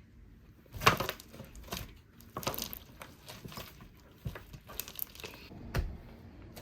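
Slime mixed with foam beads being squished and kneaded by hand, giving irregular crackles and crunches with a few sharp clicks.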